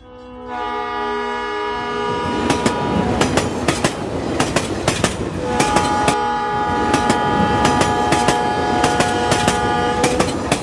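Toy train running on plastic track with continuous irregular clicking and clatter. A multi-note train horn sounds twice, first for about two and a half seconds just after the start, then for about five seconds from the middle.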